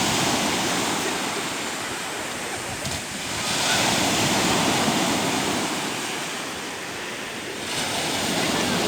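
Sea surf: waves rushing in and washing back, the hiss swelling and easing three times, loudest in the middle.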